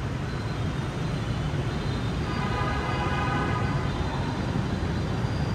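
Steady low drone of road traffic. About two seconds in, a cluster of high steady tones joins it and lasts for about two seconds.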